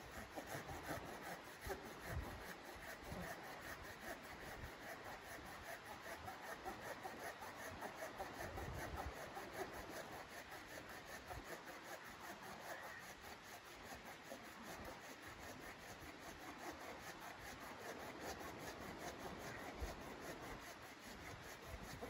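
Red-handled hand saw cutting through a log, with steady back-and-forth rasping strokes of the blade through the wood.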